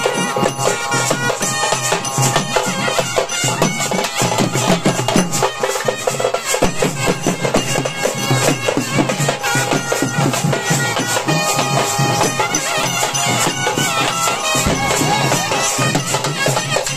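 Live folk festival music: drums beaten in a fast, dense rhythm, with a wind instrument holding steady notes over them.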